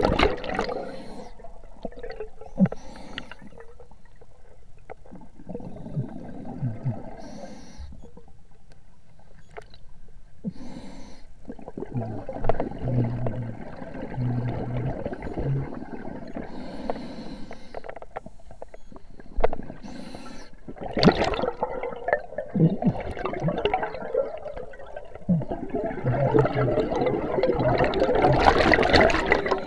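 Bubbling and gurgling water heard underwater, coming in irregular bursts with a few sharp clicks, loudest near the end.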